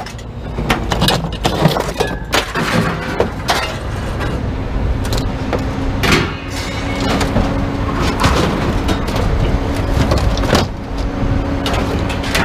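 Scrap metal clanking and rattling as it is handled and unloaded, with a steady low hum underneath from about four seconds in.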